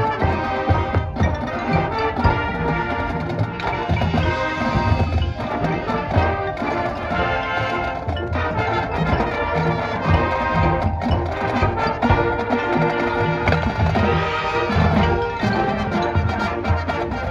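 High school marching band playing: brass with a drumline and front-ensemble mallet percussion, with steady rhythmic drum strikes under sustained pitched chords.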